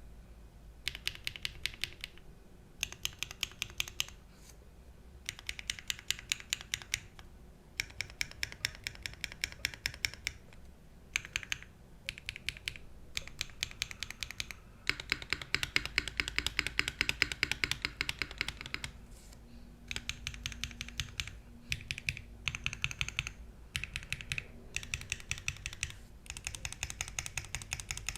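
Mechanical keyboard typed in bursts of rapid keystrokes with short pauses between them. It is a SEBAS prototype with an aluminium plate and no foam, fitted with stock BSUN TaiChi linear switches, TX stabilisers and GMK keycaps.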